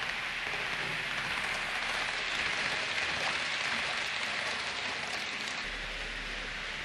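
Hornby Class 390 Pendolino model train running along the layout track: a steady rushing hiss of its wheels and motor, a little louder around the middle as it passes close by.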